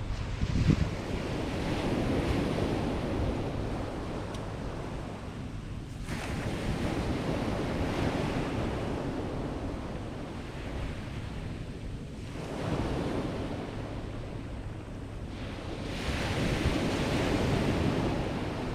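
Sea waves breaking on the beach, surging in and drawing back about every five seconds, with wind buffeting the microphone. A brief knock under a second in.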